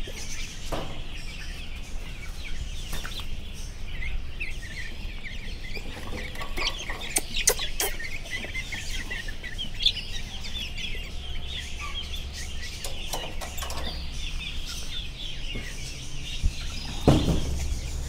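A flock of young chickens, one to two months old, peeping and clucking continuously, with a few sharp clicks about seven seconds in and a louder call near the end.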